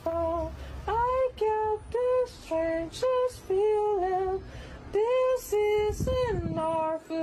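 A high voice singing a slow melody in short, evenly held notes with brief breaks between them, laid in as background music.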